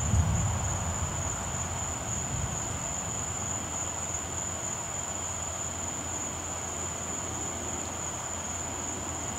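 Crickets trilling steadily at night, one unbroken high-pitched tone, over a low steady rumble that swells briefly at the start.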